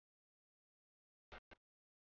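Near silence, broken by two brief clipped bursts of sound about a second and a half in.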